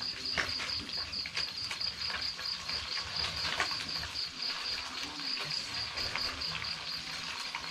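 An insect trills steadily in quick high pulses, about five a second, over the hiss of sea fish frying in oil in a wok on a wood fire, with scattered crackles and spatters.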